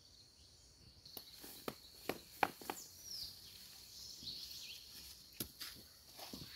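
A steady high-pitched insect drone, joined from about a second in by a run of irregular sharp clicks and knocks, with a short bird chirp in the middle.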